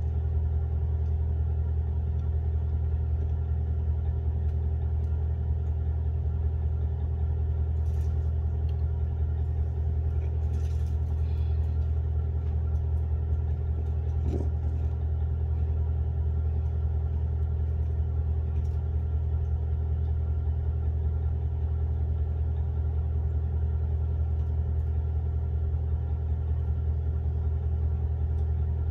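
A steady low machine hum with several faint steady tones above it, unchanging in level throughout.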